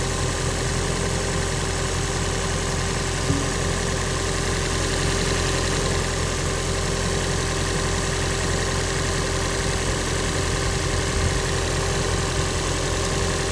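2009 Toyota Prius running steadily under the open hood, a constant idling hum with a steady tone over it. One short knock about three seconds in.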